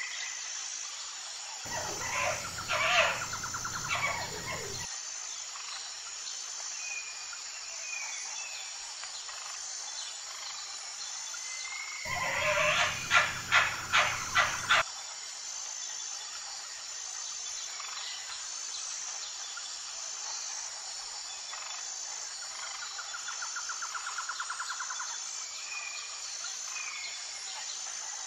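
Outdoor nature ambience: a steady, high-pitched insect chorus with an even pulse, with bird calls breaking in twice, the second time as a loud run of sharp repeated calls, and a short fast trill near the end.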